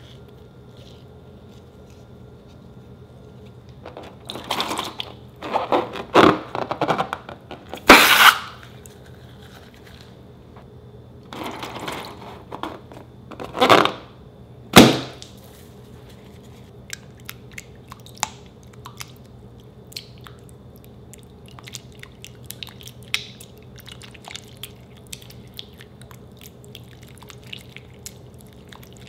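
Slime ASMR: scissors snip open slime-filled balloons and thick slime squelches out into a glass bowl, with a few loud squishy bursts and one sharp snip in the first half. Later a silicone spatula stirs the sticky slime with faint crackling clicks.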